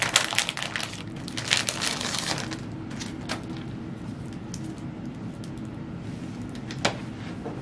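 Plastic packaging bag crinkling and rustling as a replacement laptop battery is handled out of it, densest in the first two and a half seconds, then a few scattered rustles and one sharp click near the end.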